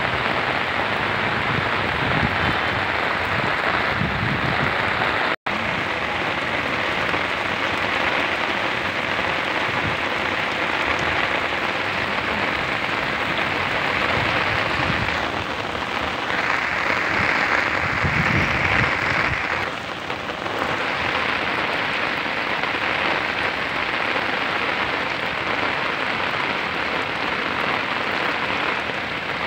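Heavy rain falling steadily in a dense, even hiss, growing louder for a few seconds past the middle. It cuts out for an instant about five seconds in.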